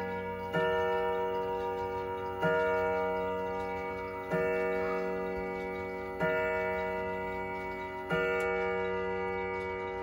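Howard Miller Jennison wall clock striking the hour: a hammer hits one rod gong on the same deep note about every two seconds, five strikes in all, each left to ring and fade before the next. The pendulum ticks underneath.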